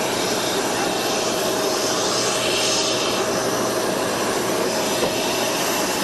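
Steady jet aircraft engine noise: an even rush with a faint constant whine.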